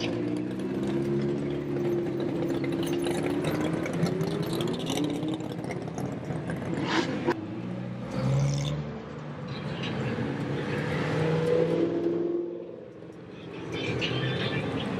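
Sports cars driving past one after another, a Ferrari among them, their engines revving and rising in pitch as they pull away. The sound swells again as another car passes, then drops briefly near the end.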